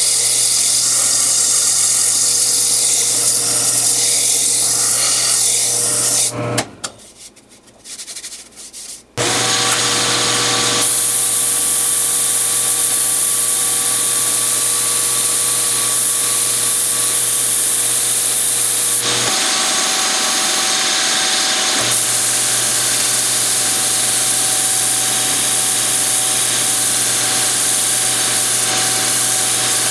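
Wood lathe running with sandpaper held against the spinning maple workpiece: a steady sanding hiss over the machine's constant hum. The sound drops away for about three seconds a quarter of the way in, then carries on steadily.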